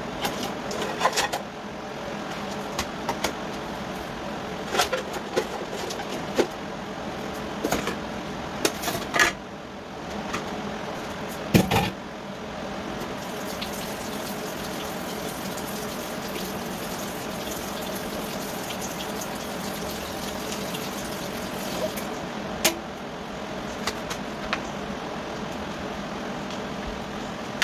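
Kitchenware clinks and knocks as food is dished out, a handful of sharp strikes scattered over the first dozen seconds and one more near the end, over a steady rushing background that may be running tap water.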